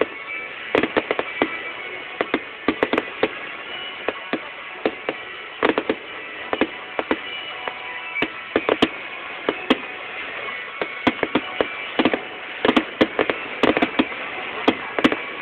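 Fireworks going off: irregular sharp bangs and pops, sometimes in quick clusters, over a continuous background of steady tones.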